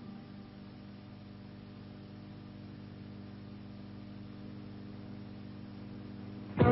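Steady low electrical hum with faint hiss, in a pause between background music pieces. Music comes in suddenly right at the end.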